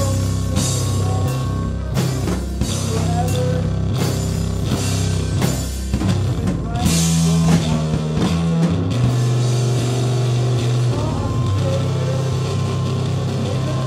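Live rock band playing: drum kit, bass and electric guitar. Busy drumming thins out about halfway through, leaving long held bass notes under the guitar.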